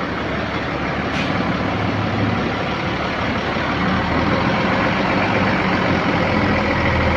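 Tour bus diesel engine running steadily, growing louder about four seconds in as the bus comes closer, with a short hiss about a second in.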